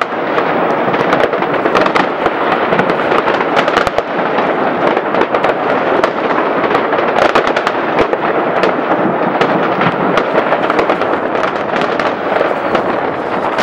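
Many fireworks going off at once in a continuous barrage: a dense, unbroken din of bangs and crackling, with many sharp cracks standing out throughout.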